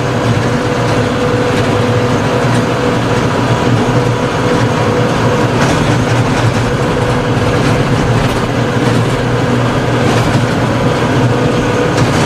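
Tractor engine running steadily, with a constant whine over it.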